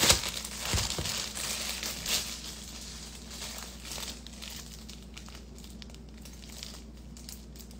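Plastic bagel bag crinkling as it is handled and its tie undone, with the strongest rustles in the first couple of seconds, then fainter rustling.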